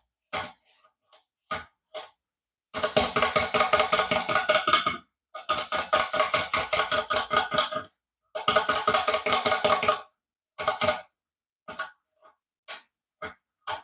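Small electric motor and plastic gearing of a build-it-yourself remote-control walking toy dog running in three bursts of about two seconds each, with a fast rattling clatter. Short separate clicks come before and after the bursts.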